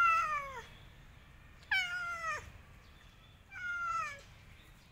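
A domestic cat meowing three times, drawn-out calls about two seconds apart, each sliding down in pitch.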